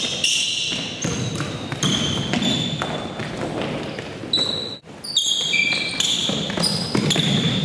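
Pickup basketball game: sneakers squeaking in many short, high squeaks on the gym floor, with a basketball bouncing and players' running footsteps.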